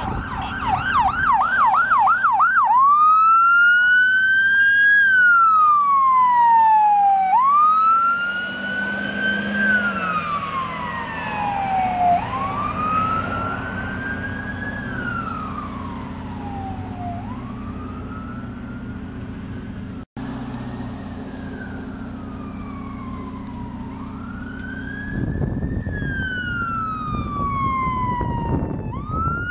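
Ambulance electronic siren switching from a fast yelp to a slow wail about two and a half seconds in, each wail rising and falling over about five seconds, over the vehicle's engine rumble. After a brief break, a second emergency vehicle's siren carries on the wail, and a vehicle's engine rumble grows louder near the end.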